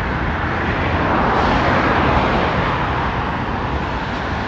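Steady rushing noise of wind and road traffic heard from a moving bicycle, swelling for a second or so about a second and a half in.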